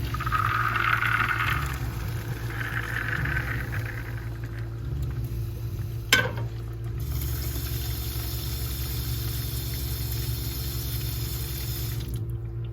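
A pot of boiled popcorn and its hot water being dumped into a kitchen sink with the cold tap running. The water splashes and hisses in two surges, a single metal clank comes about six seconds in, and then a steady rush of running water stops suddenly near the end.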